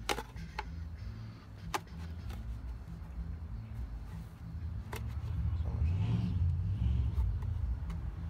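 Low rumble of a nearby motor vehicle's engine, growing louder about six seconds in, with three sharp clicks and knocks as the intake tube is handled.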